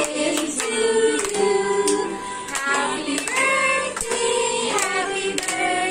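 A group of children and women singing a birthday song together, with scattered claps.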